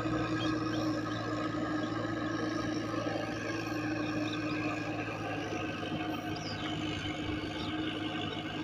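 John Deere 5055 tractor's diesel engine running steadily with an even drone as it works a flooded rice paddy. A few faint high chirps sound over it.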